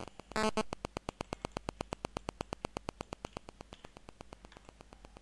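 Rapid, evenly spaced clicking, about ten clicks a second, fading away over the last couple of seconds, with a short buzzy tone about half a second in.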